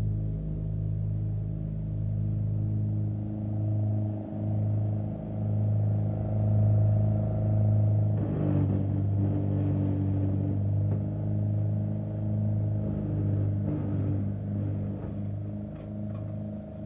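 Gravely Pro Chip 944 wood chipper's engine running at a steady speed. From about eight seconds in, a rough, irregular clattering lies over it for several seconds.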